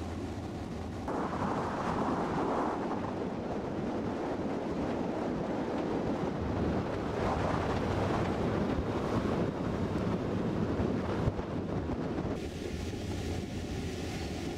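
Rigid inflatable boat's engine running steadily under way, a low hum under the rush of water along the hull and wind buffeting the microphone. The wind and water noise grows louder about a second in and eases again near the end.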